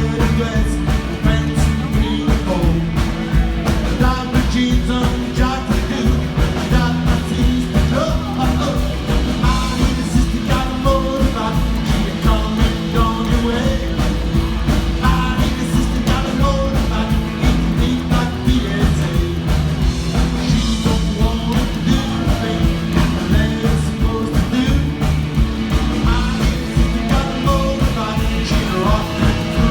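Rock and roll band playing with a lead singer, a steady drum beat under bass and guitar.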